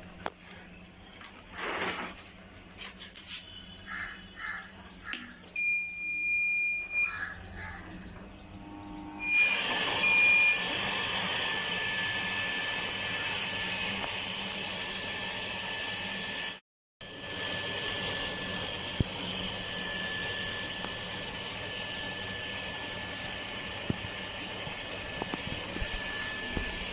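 A few handling clicks, then electronic beeps from a digital inverter: one long beep, then two short ones. An electric water pump then starts on the inverter's power and runs steadily with a rushing hiss and a thin high whine.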